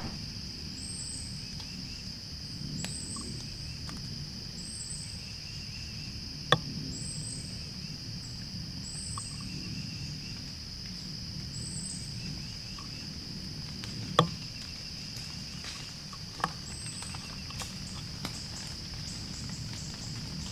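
Night insect chorus: a steady high cricket trill, with a separate higher chirp repeating about once a second. Three sharp clicks or snaps break in, the loudest sounds heard.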